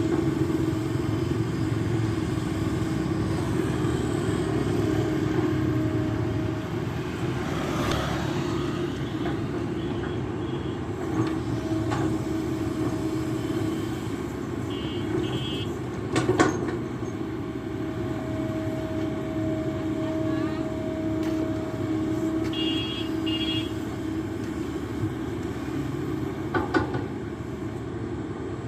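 Excavator engine running steadily, with a few sharp knocks: one about halfway through and a pair near the end.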